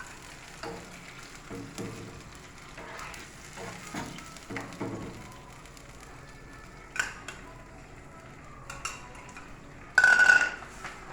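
Vegetables and sauce sizzling in a pan while a spoon stirs them, with scattered knocks of the spoon against the pan. About ten seconds in comes one loud, brief ringing scrape or clang.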